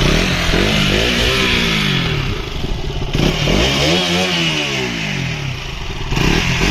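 KTM Duke 200's single-cylinder engine, exhaling through its short underbelly exhaust, revved in neutral on a stationary bike. There are three throttle blips, each climbing quickly and sinking slowly back toward idle.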